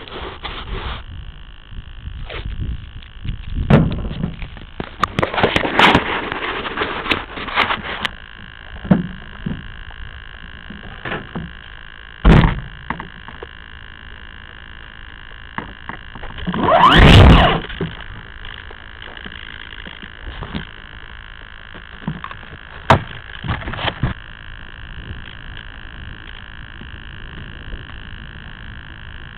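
Handling noise picked up by a small camera mounted on an RC glider: irregular knocks, rubs and thumps as the model is carried and handled, the loudest a long scraping rumble a little past the middle. Under it runs a steady high electronic whine.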